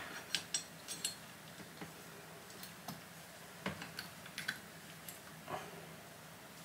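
Faint, scattered clicks and light metallic taps as a throttle slide and its cable fitting are worked into a small Bing carburettor body by hand.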